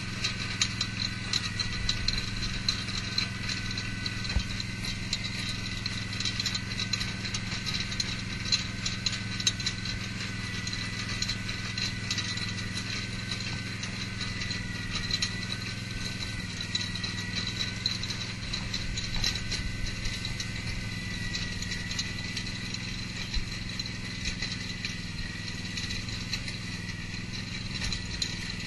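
Case H-70 rototiller driven by a Case garden tractor, its tines tearing into hard, dry unbroken ground. The engine runs steadily under a continuous rattling clatter with many sharp clicks.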